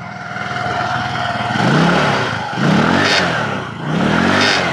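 Motor scooter engine being revved from idle about three times, its pitch climbing and dropping with each blip of the throttle. The odd noise it makes on acceleration comes from a broken exhaust bolt that has fallen out, letting the exhaust leak at the joint.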